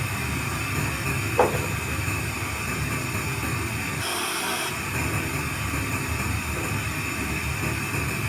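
Steady FM radio hiss from the amplifier's speaker in FM mode, with no station coming through, and one short click about a second and a half in.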